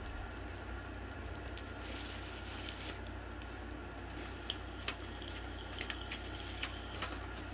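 Rummaging through items while searching for a misplaced tape measure: faint rustling and a handful of small clicks and taps, mostly in the second half, over a steady low hum.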